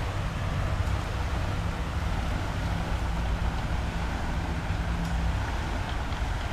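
Steady outdoor background noise: an even rush over a low drone, the drone's upper note dropping out about five seconds in.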